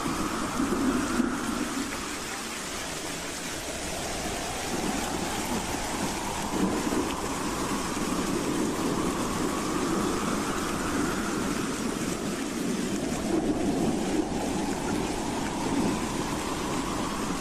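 Howling wind: a steady rush with a whistling tone that slowly rises and falls, sweeping up over several seconds and back down, twice.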